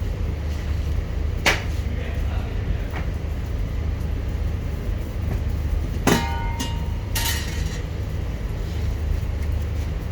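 Steady low rumble with a few sharp knocks; the loudest, about six seconds in, is a metallic clang that rings briefly, followed by a short clatter a second later.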